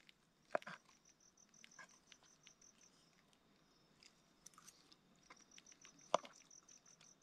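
An insect chirping in two runs of even, high-pitched pulses, about six a second. Two faint clicks of a fork against a frying pan come about half a second in and near the end.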